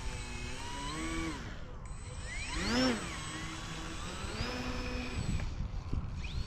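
RC airplane's motor and propeller whining in flight, the pitch rising and falling with throttle changes and held steady in between, with one quick sweep up and back down about three seconds in.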